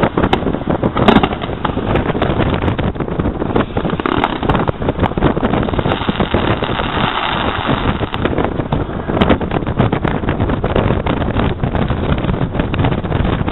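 Wind rumbling steadily on the microphone, with fireworks bangs and crackles over it; the loudest bang comes about a second in.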